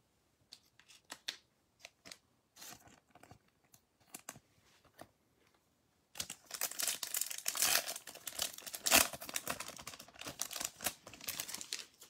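A few light clicks, then, from about six seconds in, a Topps Chrome card pack's plastic wrapper torn open and crinkled by hand.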